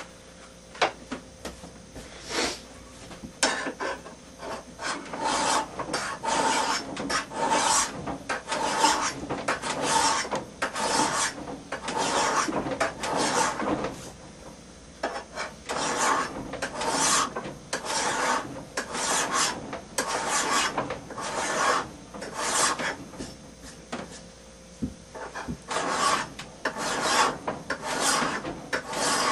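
Hand file pushed across the steel bevel of a throwing hand axe in a long series of rasping strokes, about one or two a second, with two short pauses; the edge is being sharpened.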